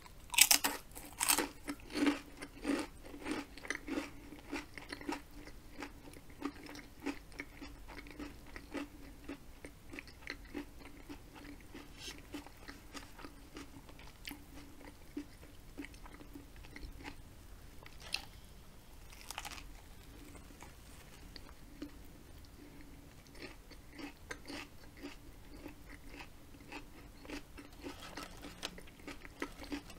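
Close-miked crunching of a ridged potato chip: loud, crisp crunches in the first few seconds, then softer, irregular chewing with an occasional sharper crunch.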